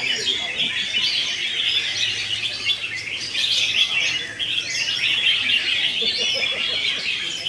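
Caged songbirds singing and chirping all at once, a dense, unbroken chorus of quick rising and falling notes from several birds overlapping.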